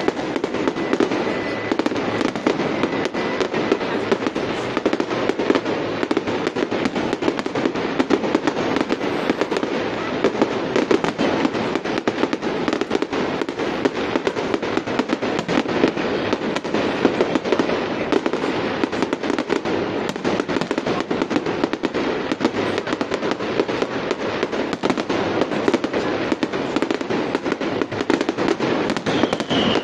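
Fireworks display: a dense, continuous barrage of bangs and crackling pops, with a short falling whistle near the end.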